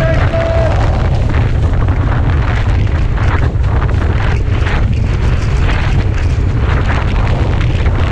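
Strong wind buffeting the microphone of a board-mounted camera, with water splashing and slapping against a windsurf board planing over choppy sea. The sound is steady and loud, broken by irregular splashes.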